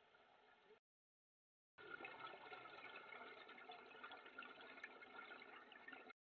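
Faint underwater ambience: a low hiss with fine, scattered crackling. It cuts to dead silence for about a second near the start and cuts off again just before the end.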